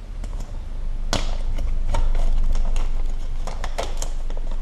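Handling noise of small laptop parts being moved about by hand: scattered light clicks and taps, a sharper one about a second in, over a low rumble.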